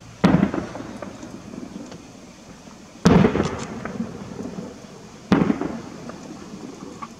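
Three aerial firework shells bursting, each a sudden boom followed by a rolling rumble that dies away over a second or two.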